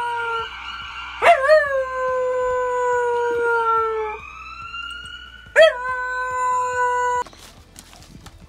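Siberian husky howling along with an ambulance siren recording played on a laptop. There are two long howls, each starting with a sharp upward swoop and then sagging slowly in pitch, with the siren rising between them. The sound cuts off abruptly about seven seconds in.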